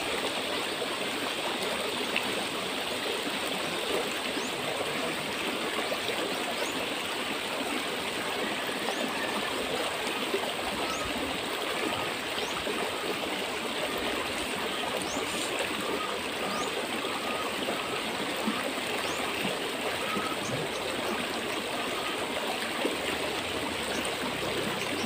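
River water flowing steadily, a constant even rush with no pauses.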